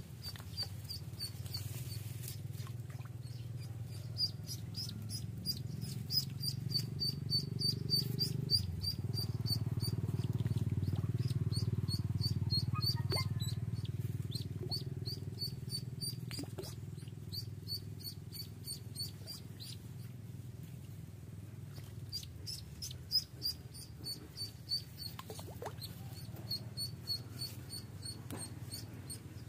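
A live duckling hung on a fishing line as bait, peeping over and over in short high calls, with a brief pause about two-thirds of the way through. Under it runs a steady low rumble that swells in the middle.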